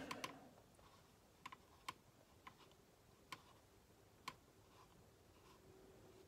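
Near silence, broken by a handful of faint, sharp, irregularly spaced clicks, most of them in the first few seconds.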